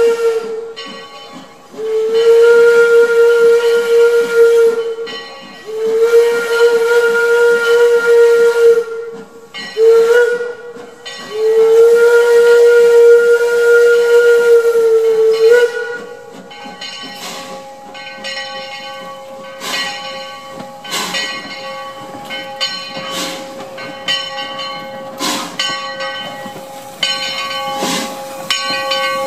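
Baldwin steam locomotive's whistle sounding the grade-crossing signal: two long blasts, a short one and a final long one. After that, as the engine rolls up and passes close by, it keeps working with steady hissing and a run of irregular knocks and chuffs.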